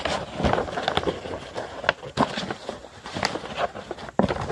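A sheet of copy paper being folded and pressed by hand, giving quick, irregular crinkles and rustles as the creases are worked in.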